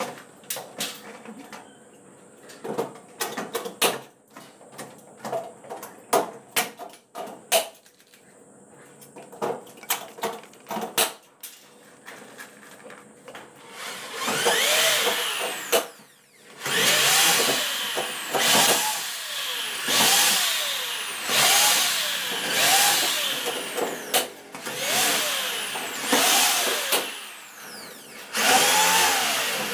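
Scattered clicks and knocks of work at the wall, then from about halfway through a power drill run in short repeated bursts, its whine rising and falling each time, about once every one and a half seconds.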